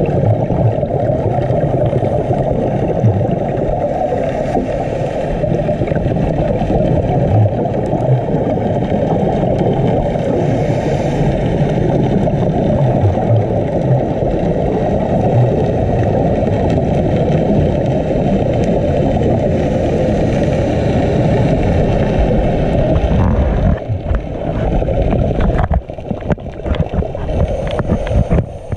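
Muffled underwater noise picked up by a camera in its waterproof housing: a steady low rumble with everything above it cut off. About 24 seconds in, it breaks up into uneven bursts.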